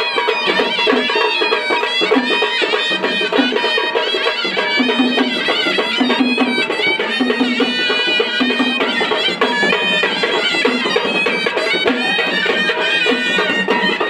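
Traditional vajantri band music: a reed wind instrument plays a bending, ornamented melody over dhol and tasha drums.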